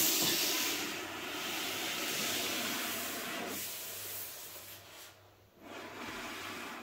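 Cardboard box being handled and shifted with gloved hands: a rubbing noise, loudest at the start, that drops away briefly about five seconds in and then resumes.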